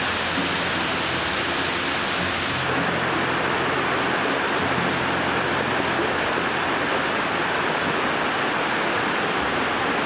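Small rocky forest stream rushing steadily over a low cascade of boulders: an even, unbroken rush of water.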